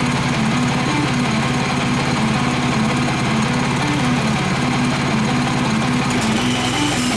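Small gasoline engine of a manual bandsaw mill running steadily under load, its pitch wavering slightly, as the blade saws through a hardwood log.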